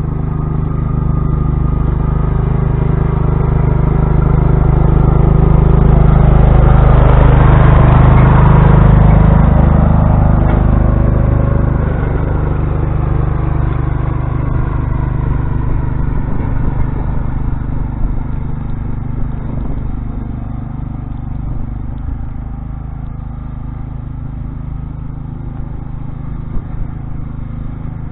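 Old Sears Craftsman lawn tractor engine running steadily while it plows snow with a front blade. It grows louder as it comes near, peaks about eight seconds in, then slowly fades as it moves away, with a few small knocks in the second half.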